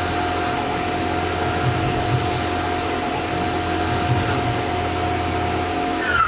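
Tormach CNC mill running a cut: a loud, steady machining noise with one steady tone through it. Near the end a whine drops quickly in pitch as the spindle slows down.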